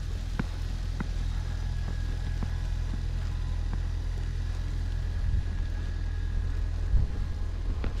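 Blizzard wind buffeting the microphone as a steady low rumble, with faint footsteps in snow and one louder thump about seven seconds in.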